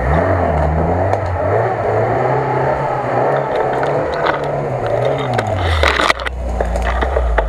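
Lada Niva (VAZ-2121) engine revving up and holding under load as the car drives out of a mud rut, then dropping back to a low steady rumble. Branches and grass scrape against it about six seconds in.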